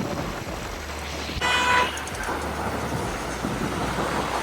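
A vehicle horn sounds once, a short toot of about half a second, roughly a second and a half in, over steady traffic and road noise.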